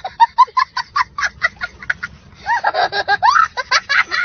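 A young child laughing hard: a quick run of short bursts of laughter, then higher squealing laughs that rise and fall about halfway through.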